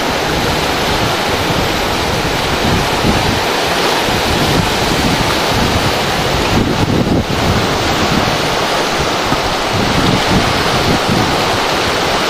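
Whitewater rapids rushing steadily and loudly, with wind buffeting the microphone.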